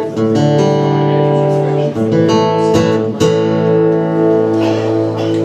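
Guitar strumming chords, the strums left to ring, as the opening of the next song.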